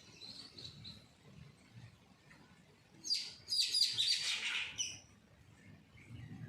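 Chickens chirping: a faint high cheep near the start, then a loud burst of high chirping calls lasting about two seconds, starting about three seconds in.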